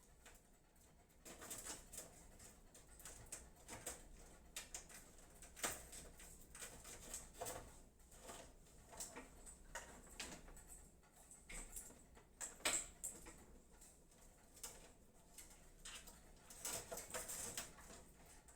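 Faint, irregular rustling and clicking of PC power-supply cables and connectors being handled and routed inside a computer case.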